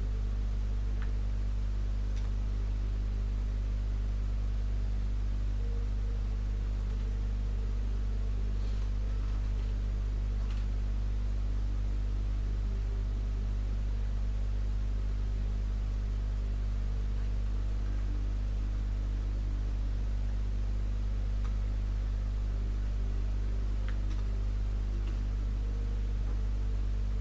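A steady low electrical hum with a constant hiss, unchanging throughout, with a few faint ticks.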